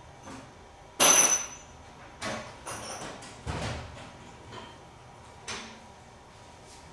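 Hammer striking metal to work a rusted bolt loose: one loud, ringing blow about a second in, then four lighter knocks.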